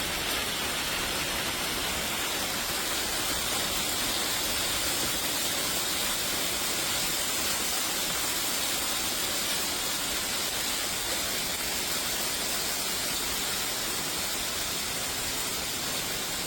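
Heavy thunderstorm rain falling, a steady, even rushing noise with no separate drops, hail strikes or thunder.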